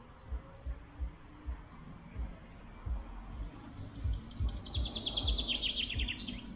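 A songbird sings one fast trill of rapid notes that falls in pitch, starting about four seconds in and lasting about two seconds. Underneath, soft low knocks come every half second or so from the walking dog's steps jostling its back-mounted camera.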